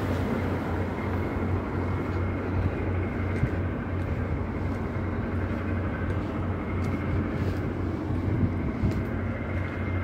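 Steady low rumble of wind buffeting a handheld phone's microphone outdoors, with a few faint clicks.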